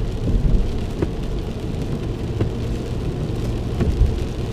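Inside a moving car in rain: a steady low rumble of road and engine noise, with a few scattered sharp ticks.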